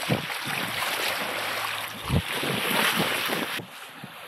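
Sea water rushing and splashing along a sailing yacht's bow and hull as it moves through the water, with wind buffeting the microphone in low thumps, one of the strongest about two seconds in.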